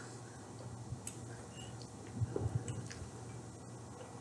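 Quiet chewing of a mouthful of chicken curry and white rice, with scattered faint clicks and a short run of soft low thumps a little past two seconds in.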